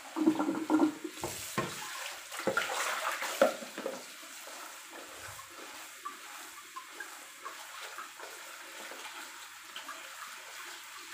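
Kitchen tap running into a plastic colander in the sink, water splashing over chives as hands rinse them. The splashing is louder and uneven for the first few seconds, then settles into a steady flow.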